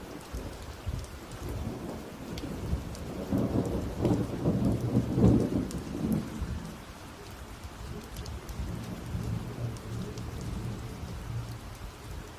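Rain falling steadily, with a deep rumble of thunder that builds about three seconds in, is loudest around five seconds and fades out by about seven.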